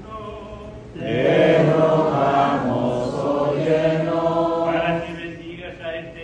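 Sung litany in call and response: a man's voice chants an invocation over a microphone, then about a second in the congregation answers in unison, much louder, for about four seconds, before the single chanting voice returns.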